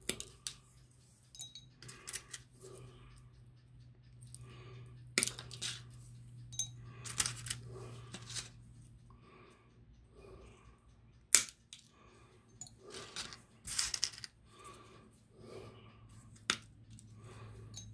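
Diagonal side cutters snipping the red heads off wooden matchsticks: a dozen or so sharp snips at irregular intervals, the cut heads dropping into a plastic cup. A low steady hum runs underneath.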